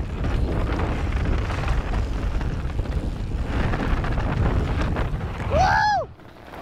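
Wind buffeting an onboard camera's microphone and mountain bike tyres rumbling over a dirt downhill trail at speed, a steady loud noise. Near the end comes a short high whoop that rises and falls, then the noise cuts off suddenly.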